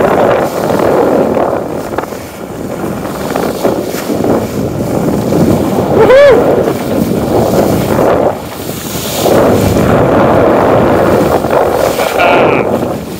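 Wind buffeting the microphone on the deck of a sailing yacht under sail, a loud, gusting rush. About six seconds in, a short voice-like call rises and falls above it.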